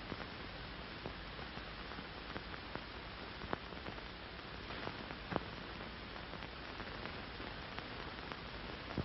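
Steady hiss with scattered clicks and pops, the surface noise of an early-1930s optical film soundtrack, with nothing else distinct above it.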